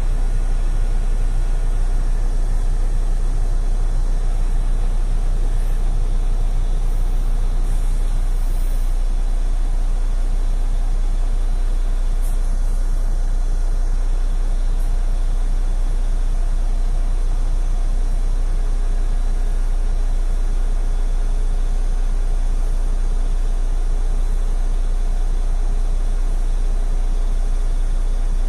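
Mercedes-Benz Citaro city bus idling while standing still, a steady low engine rumble heard from inside the passenger cabin.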